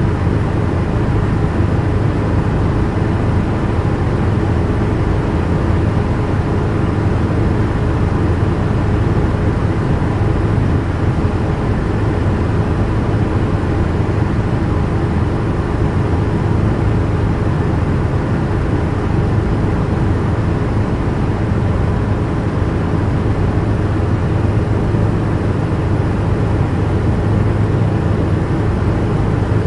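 Helicopter in flight heard from inside the cabin: a loud, steady drone of engine and rotors with a constant low hum.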